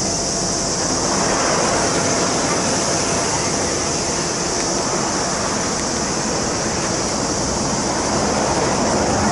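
Road traffic on the street below: a steady wash of tyre and engine noise that swells as vehicles pass, about a second in and again near the end. A constant high-pitched hiss sits over it.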